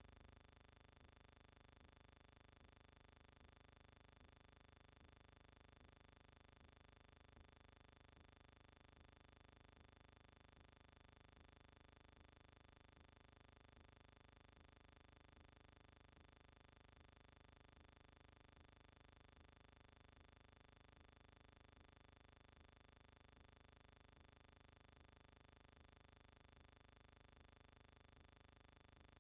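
Near silence: only a faint, steady hum and hiss under footage that has no sound of its own.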